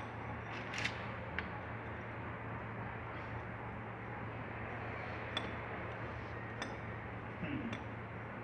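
A few light metallic clinks, sharp and isolated, from tools and engine parts being handled during disassembly, heard over a steady low hum and hiss.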